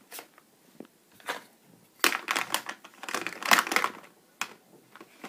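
Plastic makeup palettes and cases clacking against each other and the plastic drawer as a hand rummages through them. There are a few single clicks at first, then a busy clatter from about two to four seconds in.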